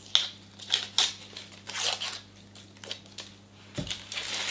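Dry, papery red onion skin being pulled off by hand, crinkling and tearing in a series of short crackles. A soft knock about four seconds in as the peeled onion is set down on the wooden board.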